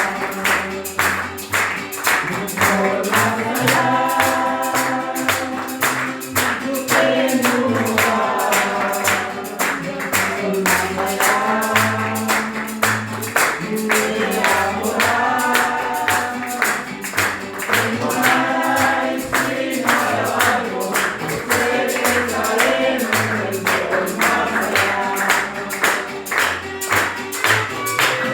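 Christian worship music: singing with a steady percussion beat, with violins played by two children.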